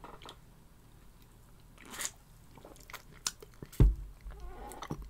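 A person drinking cider from an aluminium can: faint swallowing and mouth sounds, then a sharp knock with a low thud near the end as the can is lowered.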